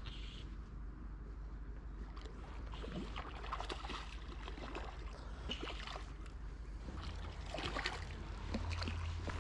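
A hooked trout splashing and thrashing at the water's surface in short, irregular bursts as it is played in on a fly rod.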